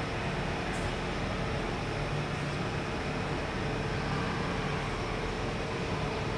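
Steady outdoor background rumble of distant city traffic, with a faint low hum and no single event standing out.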